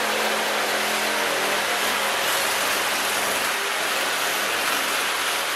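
Corded electric metal shear running steadily as it cuts a strip from a sheet of 18-gauge steel.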